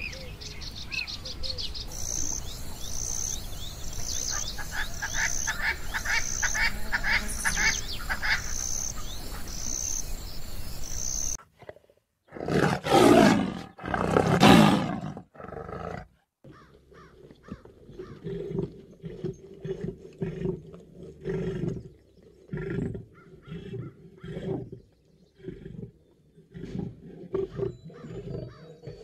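A male lion roars twice, long and loud, about twelve seconds in, then runs into a long series of shorter grunts. Before the roars there is a steady hiss with a high call repeating about once a second and a brief run of chirps.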